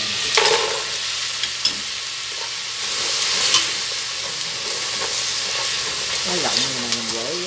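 Minced garlic sizzling in hot oil in a pot. About half a second in, a strainer of crispy fried pork skin is tipped in with a rattling clatter, and then chopsticks stir and toss the pieces with scattered light clicks over the steady sizzle.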